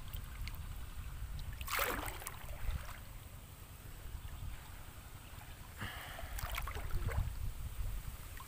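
River water splashing and sloshing close to the microphone, twice: about two seconds in, and again around six to seven seconds in, over a low steady rumble.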